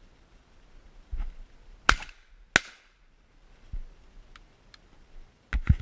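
Shotgun fired twice in quick succession, about 0.7 s apart, at doves flying over, with a duller knock just before. Lighter clicks and a thud follow, then two more sharp bangs close together near the end.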